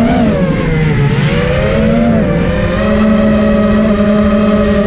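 FPV racing quadcopter's motors whining as it flies. The pitch dips about a second in as the throttle eases, rises again, and holds steady, over low wind rumble on the onboard microphone.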